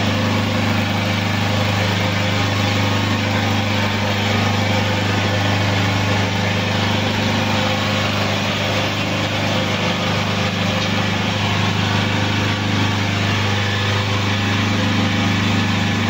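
Hydraulic power unit of a forklift solid-tyre press running, its electric pump motor giving a steady, even hum.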